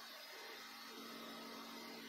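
Wood lathe running with a steady motor hum while a bowl gouge cuts the spinning spalted maple bowl, a hiss of the cut over the hum.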